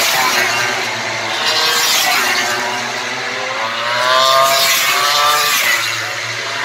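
MotoGP race motorcycles passing one after another, their engine notes overlapping; about four seconds in, one bike's engine note rises as it accelerates out of the corner.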